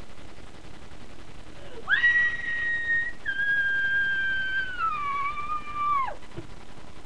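Eerie whistling: a note swoops up and holds high for about a second, breaks off, then comes back a little lower, slides down and holds before falling away near the end.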